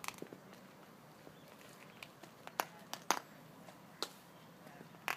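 A few short, sharp clicks and taps at irregular intervals over faint steady background noise, the loudest about two and a half and three seconds in.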